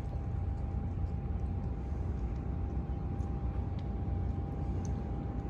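A boat's engine running steadily: a low drone with a thin, steady whine above it.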